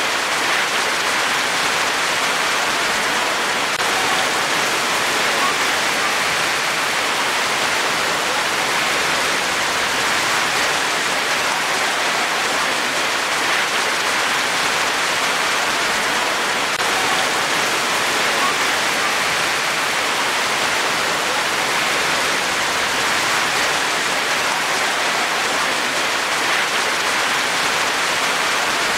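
Rain falling steadily: an even hiss that holds the same level throughout, with no breaks or single louder drops.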